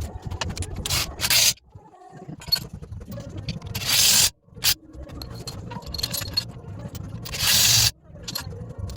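Alloy wheel rim being straightened on a workshop machine: a steady low rumble of machinery with four short, loud bursts of hissing noise, the last two about four and seven seconds in.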